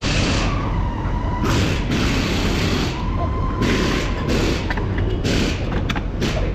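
Steady workshop background noise, with several short bursts of metallic scraping and rustling as a new rear wheel hub bearing and the brake backing plate are fitted by hand onto the knuckle.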